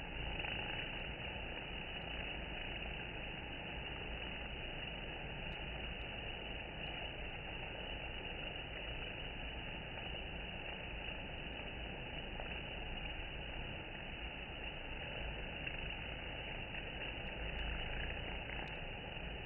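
Honey bees buzzing around a wooden hive as robber bees crowd a gap in it: a steady, even hum of many wings.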